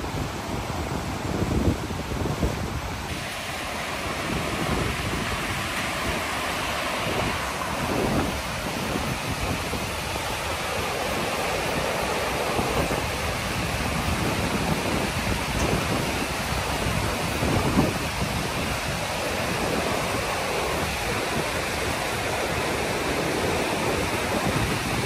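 Steady rushing of whitewater from river rapids and small falls, growing fuller and brighter about three seconds in, with wind gusting on the microphone.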